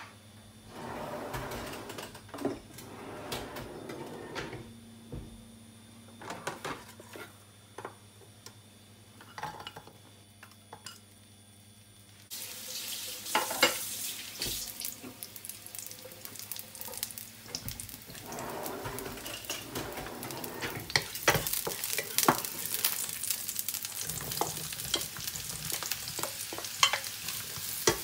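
Food frying in hot oil in a nonstick frying pan: the first part holds only light clicks and handling noises, then about halfway through a steady sizzle starts as the food goes into the oil and grows stronger. Near the end diced mushrooms are stirred with a wooden spatula, adding sharp taps and scrapes over the sizzle.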